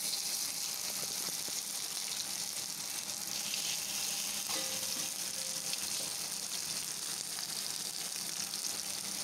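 Masala-marinated Indian mackerel shallow-frying in hot oil on a dosa tawa, sizzling steadily.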